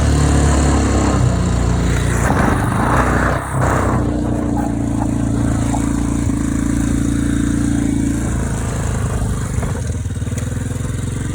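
ATV engine running steadily, with a short rushing noise about two to three seconds in.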